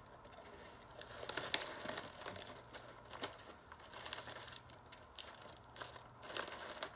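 Plastic cookie bag crinkling in the hands as it is turned over, a scatter of short, irregular crackles from about a second in.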